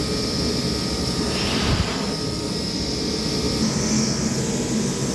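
Steady hiss of air escaping from a backhoe tire's inflated inner tube as it is let down, with a low rumble under it. The tube showed no hole, so the valve stem is suspected of leaking.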